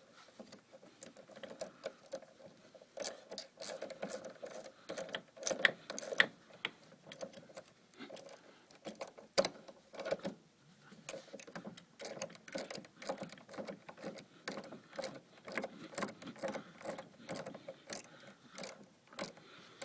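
Ratchet wrench clicking in quick runs of strokes as a bolt is tightened, fastening a bicycle-style pedal crank onto its square spindle.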